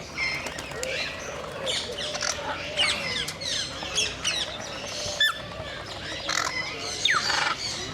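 Scarlet macaws squawking and chirping: a busy run of short, harsh calls, with a louder sweeping call near the end.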